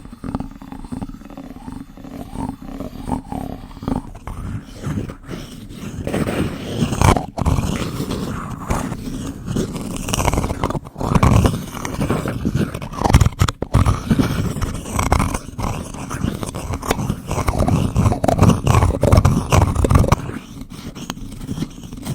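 Close-miked spoon ASMR sounds: a plastic spoon with light, regular clicks, then from about four seconds in a wooden spoon, denser and louder.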